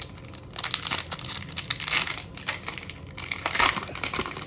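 Foil wrapper of a hockey card pack being torn open and crinkled by hand, in two bouts of crackling.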